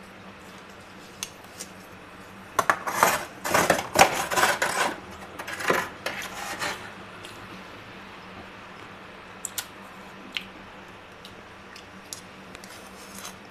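Soft freezer frost being crunched and scraped, in a run of crackly bursts from about three to seven seconds in, with a few single sharp clicks later.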